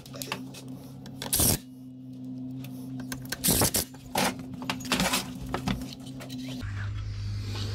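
Metal hand tools and engine parts clicking and clattering as a brush cutter engine is reassembled, with several sharp knocks, the loudest about a second and a half in and around three and a half seconds. A steady low hum runs underneath and drops in pitch near the end.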